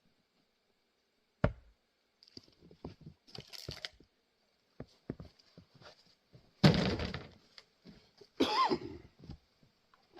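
Axe work on grand fir firewood: a sharp strike about a second and a half in, scattered lighter knocks of wood, and the loudest crack of a round splitting about two-thirds of the way through.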